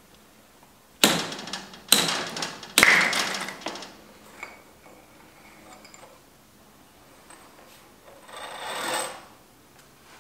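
Honda CB750 front fork being slide-hammered apart: three sharp metallic knocks about a second apart, each with a short ring, as the fork tube is yanked against its slider to drive out the old fork seal. Near the end comes a longer scraping sound as the separated parts slide out.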